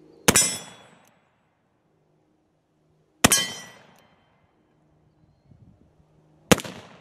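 Three shots from a .44 calibre Pietta 1858 Remington Sheriff cap-and-ball revolver loaded with black powder, fired about three seconds apart. Each report is followed by a brief metallic ring from the steel target being hit.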